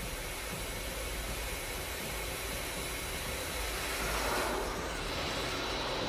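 Steady rushing jet noise of a low-flying cruise missile, swelling about four seconds in.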